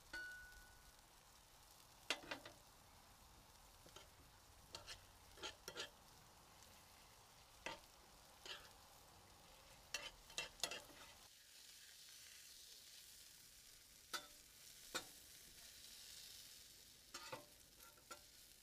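Faint sizzle of hot dogs frying on a Blackstone flat-top griddle. Scattered sharp clicks and scrapes come from a metal spatula against the griddle plate and from a spoon in a cast-iron skillet of chili, a cluster of them about ten seconds in.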